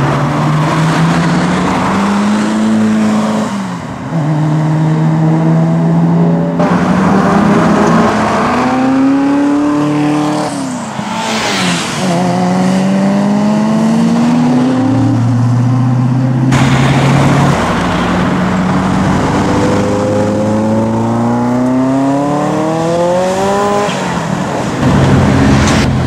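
Ferrari F40 twin-turbo V8 engines accelerating hard through the gears, in several back-to-back runs. Each run rises in pitch and drops sharply at each upshift.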